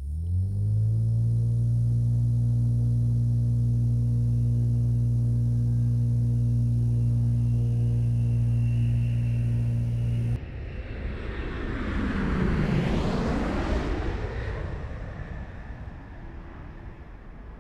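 Twin turboprop airliner's propellers running with a steady low drone that rises slightly in pitch in the first half second. About ten seconds in, it cuts abruptly to a twin-engine jet airliner climbing away after takeoff, its engine noise swelling and then fading as it passes.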